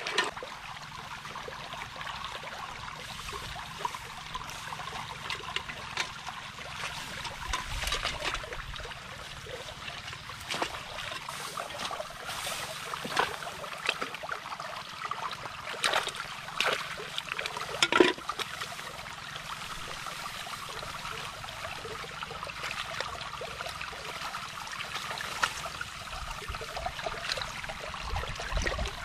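Hands sloshing and trickling through shallow muddy water, with a few sharper splashes, the loudest about eighteen seconds in.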